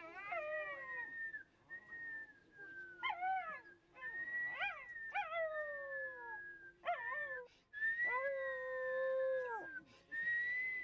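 Dog howling along to a person's whistling: a string of long, wavering wails that rise and fall, over a thin, steady whistled note held for a second or two at a time.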